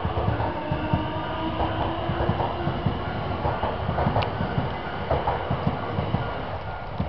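Keio Inokashira Line electric commuter train passing through a level crossing, its wheels clattering over the rail joints in a run of irregular thumps.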